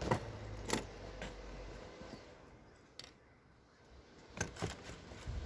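Small sharp metallic clicks and taps, a few seconds apart with a quick cluster near the end, from handling an opened wristwatch case and small watch-repair tools.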